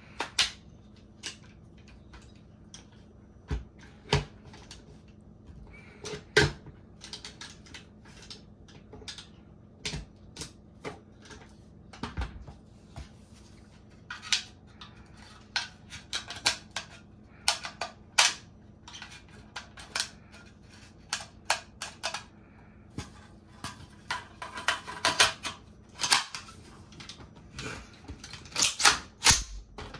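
AR-15 rifle parts being handled and fitted back together by hand: irregular sharp metallic clicks, snaps and knocks, with a denser run of louder clicks near the end.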